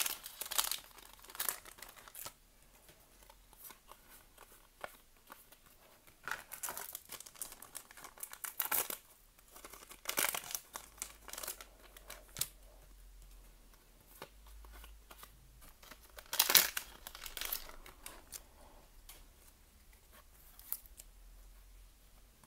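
Foil booster-pack wrapper crinkling and tearing open in irregular bursts, the loudest about two-thirds of the way in, with quieter handling of trading cards between.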